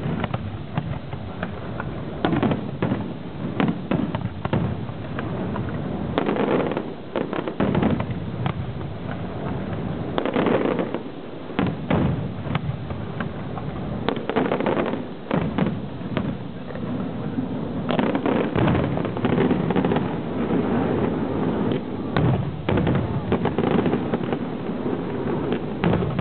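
Fireworks display: aerial shells bursting in a dense run of bangs and crackling, in clusters at first and then almost without pause from about two-thirds of the way in.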